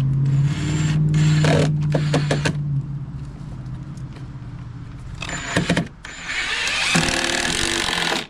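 Power tool motor running in bursts: a steady hum for the first few seconds, then two harsher runs about five and seven seconds in. The last run stops abruptly at the end.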